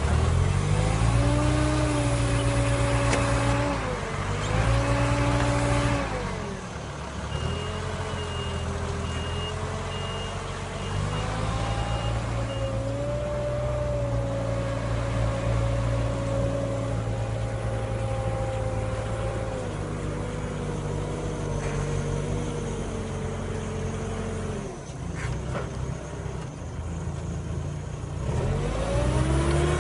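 Merlo telehandler's diesel engine running the Spedo Fruipick hydraulic olive-tree shaker. Its speed rises and falls several times as it works a tree, drives between trees and takes up the next one. A high beeper sounds on and off for a few seconds early in the middle part.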